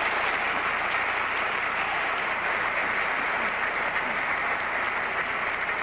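Television studio audience applauding steadily in welcome of a newly introduced panelist.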